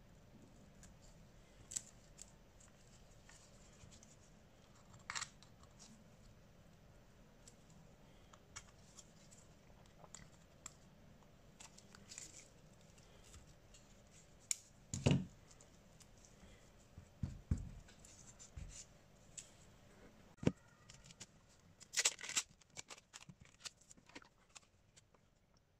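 Smartphone parts and small repair tools being handled: irregular light clicks, taps and short scrapes, with a few duller knocks around the middle and a quick cluster of sharp clicks near the end.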